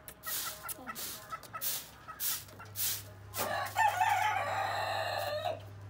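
Chickens clucking in short calls, then a rooster crows once, a long call of about two seconds starting about three and a half seconds in.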